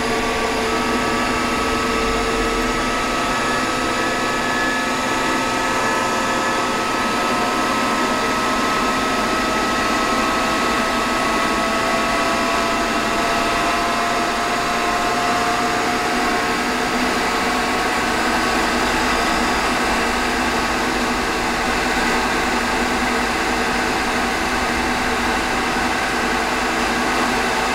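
Emco Compact 5 PC CNC lathe running a part program at a low feed rate: a steady motor whine and hum from the spindle and the NEMA 23 stepper axis drives as the carriage feeds slowly. Several thin whining tones slowly rise in pitch over the first half.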